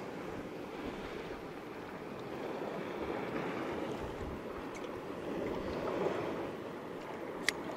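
Sea water lapping and sloshing against a fishing kayak's hull, with some wind on the microphone. A single sharp click sounds near the end.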